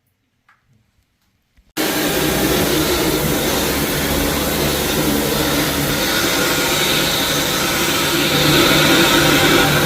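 Near silence, then a little under two seconds in a vacuum-type floor-cleaning machine switches on abruptly and runs steadily and loudly.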